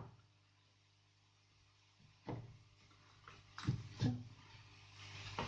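A few short knocks and clicks of tools and parts being handled on a workbench, starting about two seconds in, over a faint steady hum.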